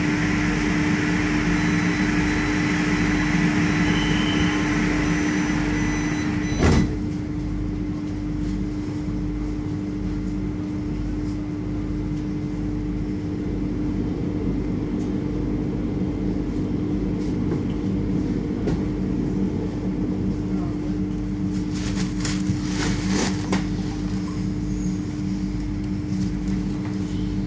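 Steady electrical hum of a Pesa Elf electric multiple unit standing at a platform, heard from inside the carriage. There is a single sharp thump about seven seconds in, after which the higher hiss falls away, and there are a few light clicks near the end.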